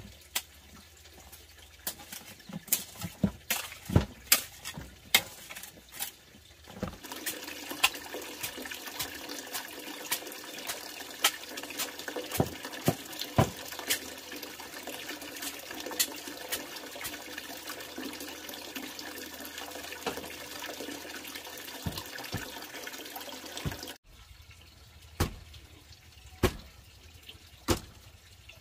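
A hoe chopping into a heap of damp clay soil in a wooden trough, making irregular sharp knocks about once a second. Through the middle a steady rushing noise sits under the strikes, then stops suddenly about three-quarters of the way in.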